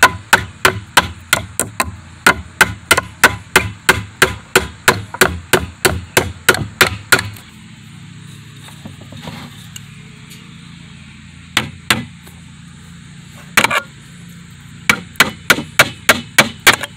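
A Buck 119 fixed-blade knife used as a hammer, its blade striking a nail head to drive it into a pine board. A steady run of sharp taps, about three a second, for the first seven seconds; then a pause with a few single taps; then a last quick run of about six near the end.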